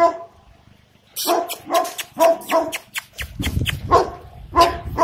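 A dog barking repeatedly in short, sharp barks, about two a second.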